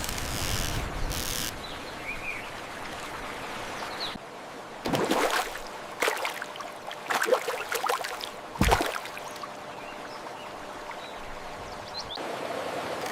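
Steady rush of water, with a run of short, louder splashes between about five and nine seconds in, the last ending in a sharp low thud.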